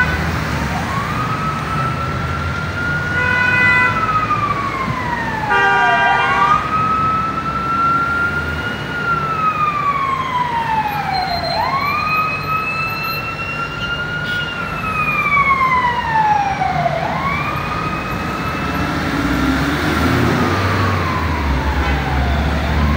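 Emergency vehicle siren in a slow wail, its pitch rising and falling in four long sweeps about five and a half seconds apart, over road traffic. Car horns honk briefly twice in the first six seconds.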